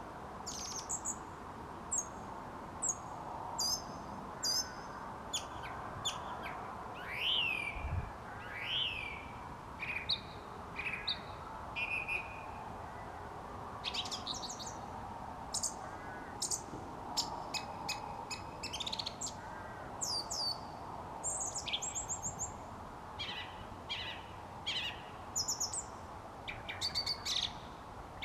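Song thrush singing at dusk: a steady run of short, loud, varied phrases, some given twice in a row, over a faint steady background hum.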